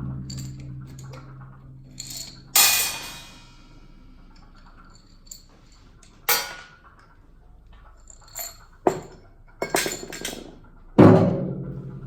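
Sparse, irregular strikes on metal percussion, about ten in all, each ringing out. The loudest comes about two and a half seconds in, and another near the end carries a deeper ring.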